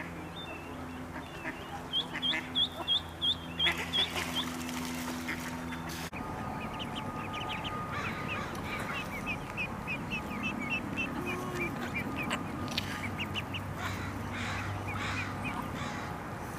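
Mallard ducklings peeping in rapid series of short, high-pitched calls: the distress calls of ducklings crying for their mother. The first run of about ten peeps is the loudest, followed after a break by a longer, quicker run, with a steady low hum under the first part.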